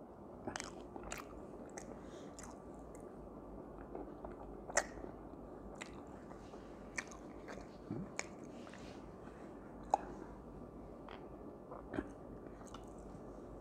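A man chewing and biting food, with lip smacks and scattered sharp mouth clicks; the loudest clicks come about 5 and 10 seconds in.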